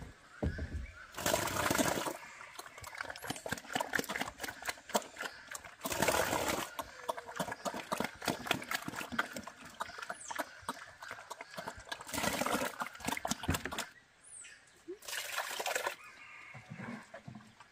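Pigs eating wet slop from a bowl: rapid wet chomping and slurping with splashes of liquid feed, rising in a few louder surges. Near the end, liquid feed is poured from a scoop into a trough.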